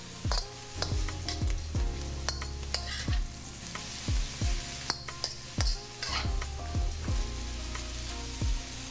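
Vegetables sizzling in a hot wok as they are stirred and tossed with a metal spatula just after soy and oyster sauces go in, the spatula knocking and scraping against the pan roughly twice a second.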